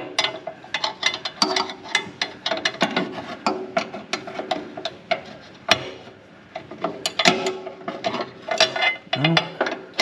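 Rapid, irregular metallic clicking and clinking of a hand wrench or ratchet working a nut onto a bolt on a mower deck drive shaft, in a cramped space.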